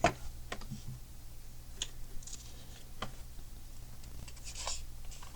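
Faint clicks and soft rustling of small plastic Lego pieces being handled, with a few separate sharp ticks and two brief rustles.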